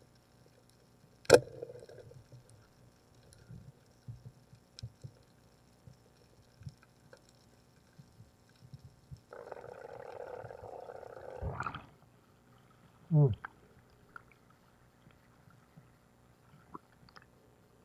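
Underwater sound during a night spear dive: a single sharp crack about a second in from the spear shot, then quiet water with faint ticks. About ten seconds in come a few seconds of rushing bubbles, then a short gurgle as the diver comes up.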